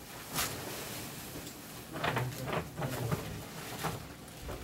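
Bags and packaging being handled and shifted about: rustling with a few short, soft knocks, most of them bunched about two to three seconds in.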